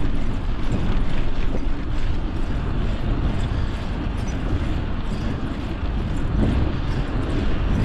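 Wind buffeting the microphone of a camera on a moving bicycle: a steady, loud, low rush with no clear tones.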